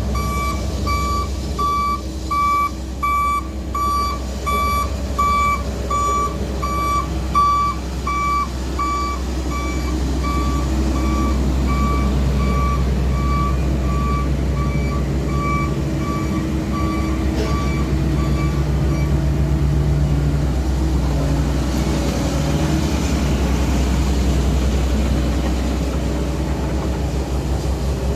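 Reversing alarm of a heavy road-works vehicle beeping about twice a second over the steady low running of its engine. The beeps grow fainter and stop about two-thirds of the way through, leaving the engine running.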